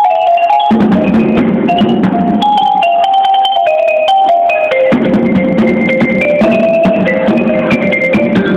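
A show band's mallet percussion playing a melody of short, stepping notes over drums. The drums drop out for a moment just after the start and again shortly before the middle, leaving the melody alone.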